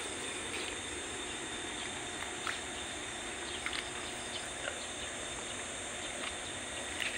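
Steady outdoor insect drone with a thin, high, unbroken whine, and a few brief faint chirps scattered through it.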